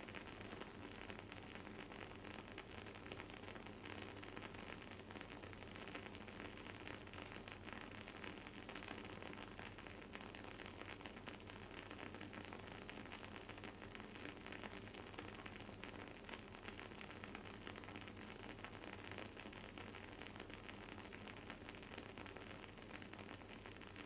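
Wooden candle wick burning with a faint, dense crackle and sizzle, many tiny pops close together, over a low steady hum.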